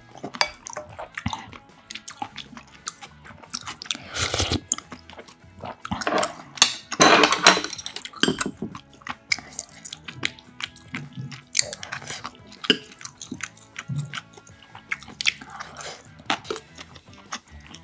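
Close-miked eating sounds: soup slurped from a spoon, then wet chewing, with louder slurps around four seconds and seven seconds in and many small clicks between them.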